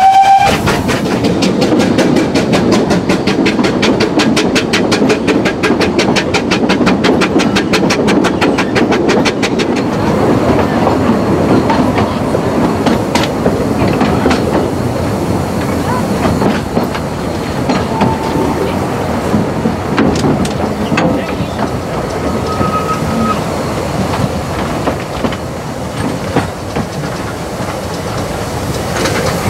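2 ft narrow-gauge steam train running, heard from inside an open-sided carriage, with fast rhythmic clicking of the wheels and running gear for about the first ten seconds. It then grows quieter as the train slows into the station, with a couple of brief faint squeals.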